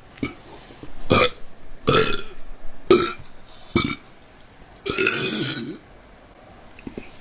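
A woman burping about five times in a row, the last burp the longest at nearly a second.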